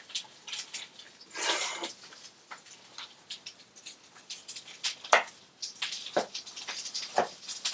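Kitchen knife cutting fennel on a wooden chopping board: a short scraping sweep about a second and a half in, then scattered taps of the blade on the board.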